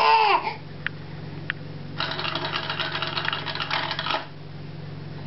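Toy push-down spinning top being pumped: its plunger rattles with a fast ratcheting for about two seconds, starting about two seconds in.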